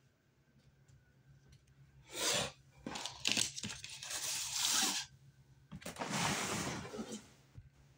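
Rustling and crinkling in several noisy bursts, like plastic being handled close to the microphone.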